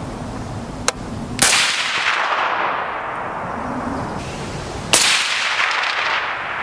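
.30-calibre rifle fired twice through a Sig Sauer SRD762Ti titanium suppressor, the shots about three and a half seconds apart. Each shot is a sharp report followed by a long echoing tail. A shorter, thinner crack comes about a second in, just before the first shot.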